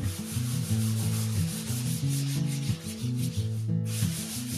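Sandpaper being rubbed by hand over a cedar strip kayak deck in steady strokes along the grain. It pauses briefly near the end and then resumes, over background music.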